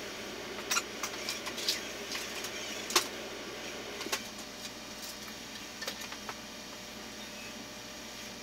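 Scattered clicks and knocks of tools and hardware being handled, sharpest about a second and three seconds in and thinning out after six seconds, over a steady background hiss.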